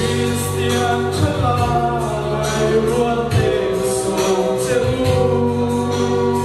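A man singing a gospel song through a microphone and PA, over amplified accompaniment with sustained bass and keyboard notes and a steady beat.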